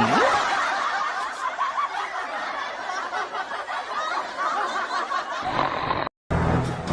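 Several people laughing and snickering together, a dense continuous chatter of laughter that cuts off abruptly about six seconds in.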